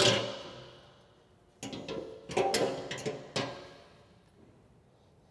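Metal clanks as steel coil trip springs are hooked onto a snow plow blade and frame: one clank at the start, then a cluster of clanks a second and a half later, each ringing briefly and fading away.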